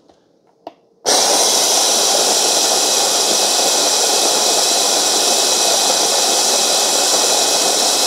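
OXO Brew conical burr coffee grinder grinding whole coffee beans: a short click, then about a second in the motor starts and runs with a steady whir until the timer shuts it off at the very end.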